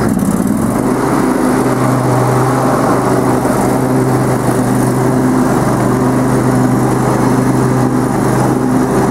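Riding lawn tractor's engine running steadily under way, its note settling into a steady hum about a second in.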